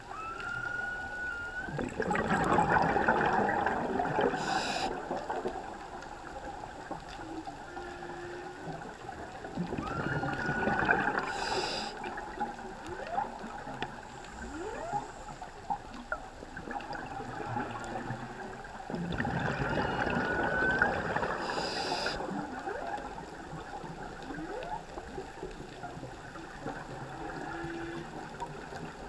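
Humpback whale song heard underwater: a rising whoop repeating about every ten seconds, with an occasional short low moan. Three times a rush of scuba exhalation bubbles lasting a few seconds rises over it, the loudest sound.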